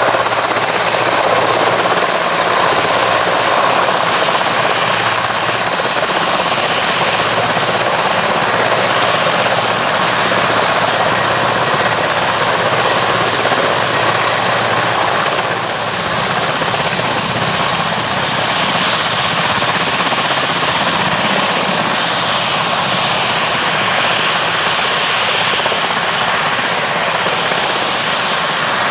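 Two Mi-171Sh helicopters flying low and hovering, their main rotors and twin turboshaft engines running loud and steady, dipping slightly about halfway through.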